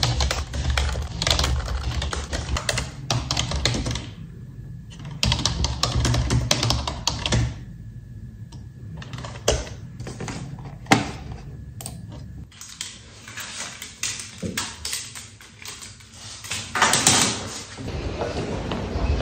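Typing on an office computer keyboard: runs of quick key clicks in bursts, broken by short pauses.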